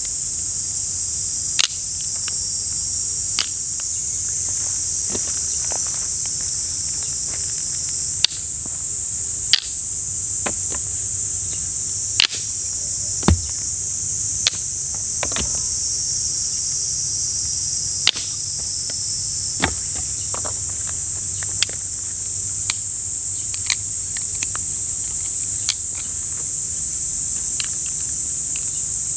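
Steady, high-pitched summer insect chorus, with scattered sharp snaps and clicks every second or two.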